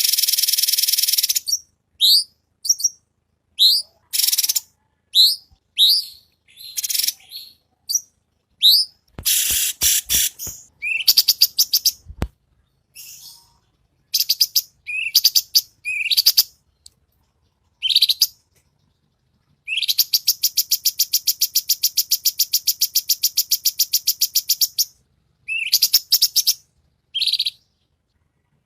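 Cucak cungkok singing: short, sharp, rising whistled notes in quick succession, broken by long, dense rapid-fire trills, the longest about 20 seconds in lasting some five seconds. A few dull knocks sound between about 9 and 12 seconds.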